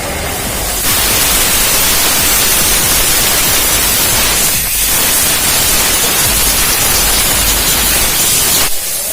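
Abrasive pressed against a car's spinning brake disc to grind off rust, giving a loud, steady rasping hiss that starts about a second in, eases briefly in the middle and stops just before the end.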